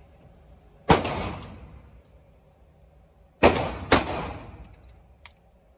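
Handgun fired three times in an indoor range lane: one shot about a second in, then a quick pair half a second apart about two and a half seconds later, each shot with a short echoing tail.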